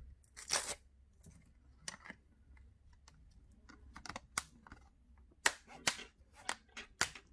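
Plastic back cover of a Samsung Galaxy Xcover 4 being pressed onto the phone, its clips snapping into place in a run of sharp, irregular clicks.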